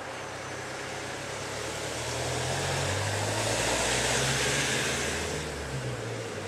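Engine noise of a passing vehicle, swelling to a peak about four seconds in and then fading.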